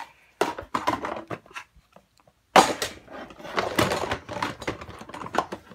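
Dishes and utensils clinking and knocking as they are handled and put away. After a short quiet gap about halfway through comes one sharp loud knock, then a run of clattering.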